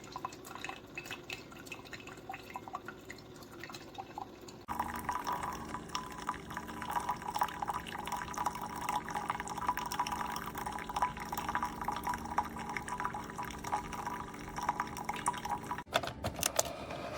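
Keurig K-Slim single-serve coffee maker brewing into a cup, with coffee dripping. About five seconds in, it turns abruptly to a louder steady stream of liquid over a steady hum.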